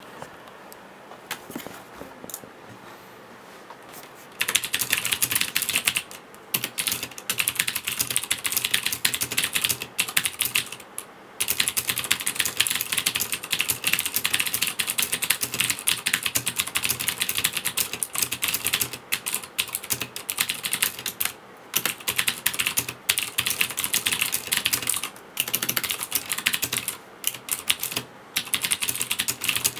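Fast typing on a Leopold tenkeyless mechanical keyboard with Cherry MX Blue switches, a dense run of sharp clicks. After a few scattered keypresses the steady typing begins about four seconds in, with brief pauses here and there.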